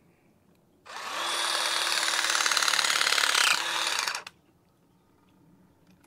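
Battery-powered Klein fence-wire crimper running its motor for about three and a half seconds as the jaws close and squeeze a crimp sleeve onto two high-tensile wires, its note shifting shortly before it stops.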